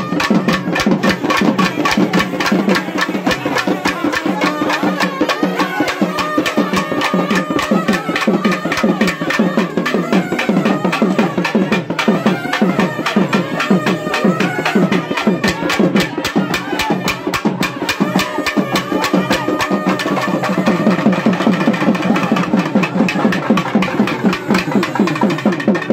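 Thavil drums played with sticks in a dense, rapid rhythm, with a wavering nadaswaram melody over them: South Indian temple procession music.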